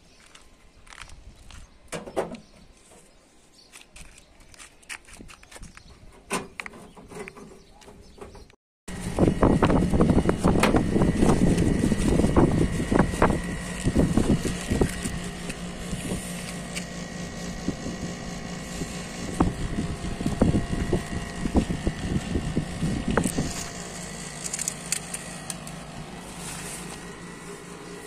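Scattered clicks and light handling noise, then, after a cut about nine seconds in, a machine running steadily with a constant hum and whine. Dense irregular knocks and rattles sit over it and ease off near the end.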